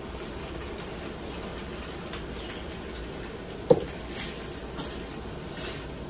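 Heavy cream poured from a carton into a pan of pasta simmering on a gas stove, over a steady hiss from the pan. A sharp knock a little past halfway as the carton is set down on the counter, then a spoon stirring in the pan.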